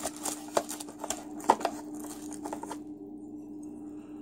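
Small plastic clicks and knocks from handling interchangeable power-plug adapters, a handful of them in the first three seconds, over a steady low hum.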